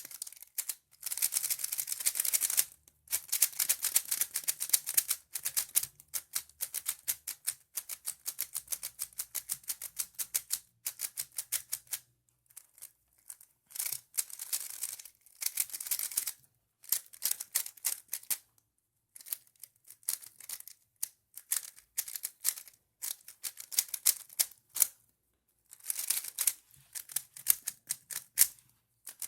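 Qiyi Thunderclap V3 M magnetic 3x3 speedcube being turned fast through algorithms: rapid runs of plastic clicking and clacking from the layers, in bursts of a second or few with brief pauses between.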